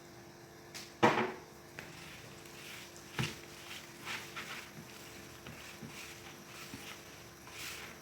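Kitchen handling sounds while ingredients go into a bowl of dough: a sharp knock about a second in, a second knock about three seconds in, and lighter clicks and scrapes between, over a faint steady hum.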